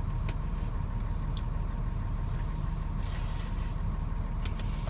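Steady low rumble of a running vehicle engine, with a few short clicks and a brief hiss over it.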